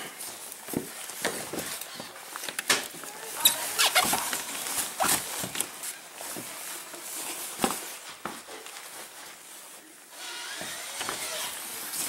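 Irregular knocks, clicks and crunchy scrapes of a house door being handled and pushed against a packed snowdrift, with a hand scraping at the snow piled against the storm door.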